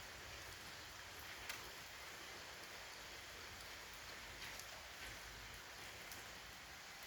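Steady rain falling, with scattered individual drops ticking nearby; one drop about a second and a half in is the sharpest.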